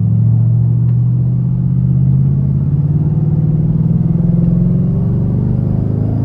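2008 Ford Mustang GT's 4.6-litre V8 running steadily under way, its pitch creeping up slightly over the first couple of seconds and then holding.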